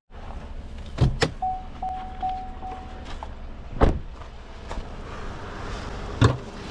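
A pickup truck's door and cab giving four sharp thumps and knocks, the loudest about four seconds in, over a low steady rumble. Between the first knocks and the loudest one, the cab's door-open warning chime dings about five times.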